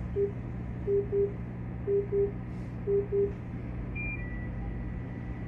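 Train radio in a driver's cab sounding its calling tone: short low beeps in pairs, about one pair a second, then a thin high steady tone from about four seconds in. A steady low electrical hum from the stopped train lies underneath.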